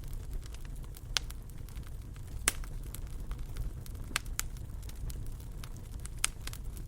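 Fire crackling in a fireplace: a steady low rumble of burning with scattered sharp pops and snaps.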